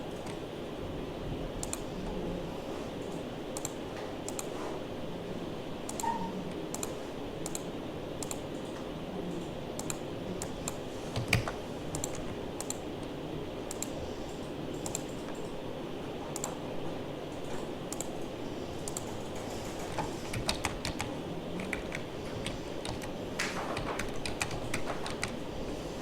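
Computer keyboard and mouse clicking at irregular intervals, the clicks coming more often near the end, over a steady low background hum.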